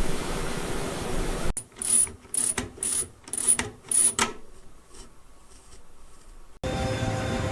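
A small mechanism ratcheting: five sharp metallic clicks about two a second with a bright high ring, after a second and a half of steady machine hum; near the end it cuts to another steady machine hum.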